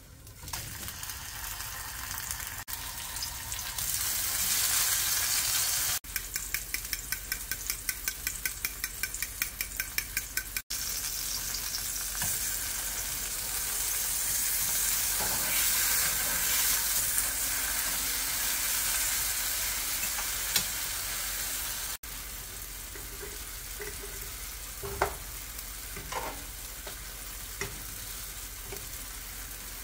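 Oil sizzling steadily as sliced sweet potato and tomato fry in two pans. For a few seconds the crackle pulses fast and even, about five times a second. Later come a few sharp clinks of a metal fork against the pan.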